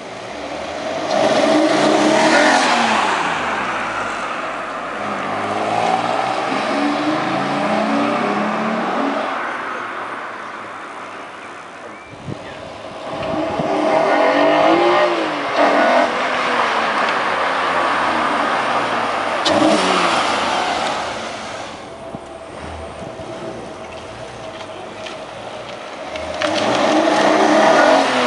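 Alfa Romeo GT's 3.2 V6 accelerating hard around the estate and passing by several times with a BMC CDA carbon intake airbox fitted, its engine and induction note rising as the car comes near and fading as it drives off.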